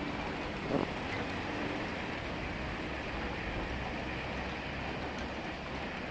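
Steady rain falling, an even hiss of drops, with one short knock about a second in.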